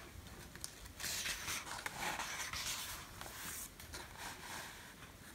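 Paper page of a picture book being turned: a soft rustle that starts about a second in and lasts about two and a half seconds, with a few light clicks.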